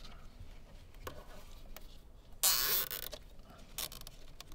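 Nylon cable tie zipped tight around wiring loom in one quick half-second pull, about two and a half seconds in, among a few faint clicks of the wires being handled.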